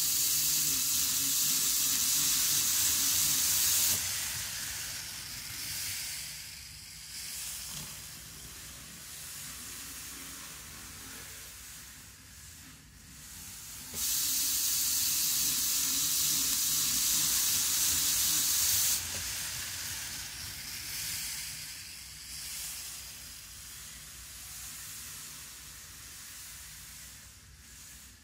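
Micro Ace N gauge model of the JR Kyushu 783 series train running on its track, making a steady hissing rush of wheels and motor. The hiss is loud twice for about four to five seconds, at the start and again about halfway through, and fainter and uneven between, with a faint low motor hum under it. The powered car still runs a little jerkily even after its wheels were cleaned.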